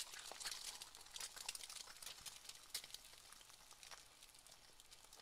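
Faint frying in a pan: scattered small crackles and pops over a soft sizzle, thinning out toward the end.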